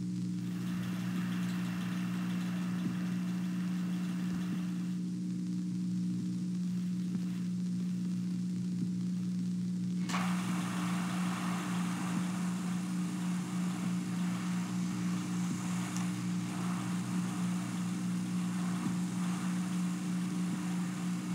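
Steady electrical mains hum with a hiss over it. The hiss comes in about half a second in, drops away around five seconds, and returns with a click about ten seconds in.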